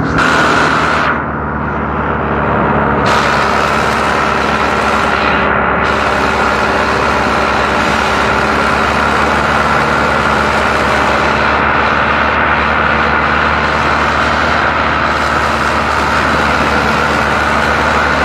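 Romanian tractor engines running steadily under heavy load as two tractors pull against each other on a chain, the tyres churning the soil. Briefly lighter about a second in.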